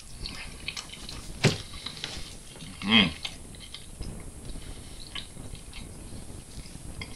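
Small eating sounds: a fork clicking and scraping on a plate, with one sharp click about a second and a half in. A short voiced sound from the eater comes about three seconds in.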